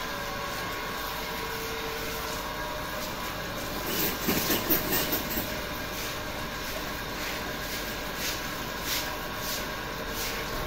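Water from a garden hose hissing and splashing steadily onto a wet concrete shed floor as it is washed down. A louder rough burst of sound comes about four seconds in, and a run of short splashing swishes follows in the second half.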